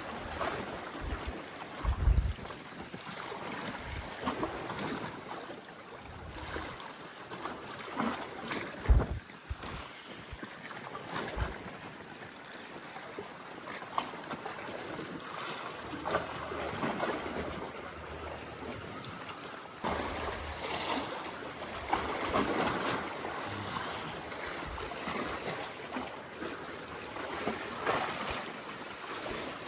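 Seawater washing and sloshing among concrete tetrapod breakwater blocks, with wind buffeting the microphone in a few short low thumps, the strongest about two and nine seconds in.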